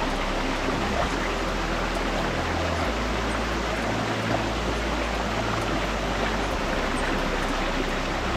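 Steady rushing of a mountain stream's water, a continuous even noise.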